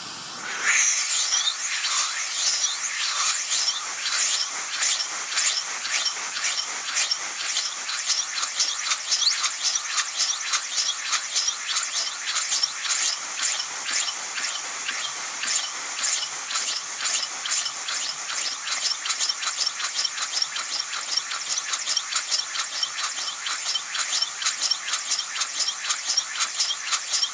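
Can of compressed air hissing steadily into a simple syringe-piston oscillating air engine, which clicks in a fast, even rhythm as it turns a CD flywheel on a DVD drive motor.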